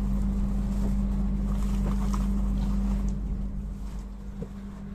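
Passenger train coach heard from inside, rolling slowly into a station: a low rumble with a steady hum over it, easing off about three and a half seconds in.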